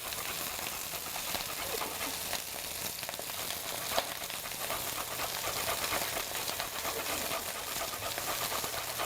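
Garlic sizzling gently in coconut oil in a pan, with the rasping strokes of fresh ginger being grated over it. A single sharper knock about four seconds in.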